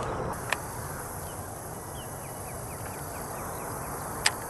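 Steady outdoor background noise on the water, broken by two sharp clicks, about half a second in and near the end. Between them, a faint run of short falling chirps from a small bird.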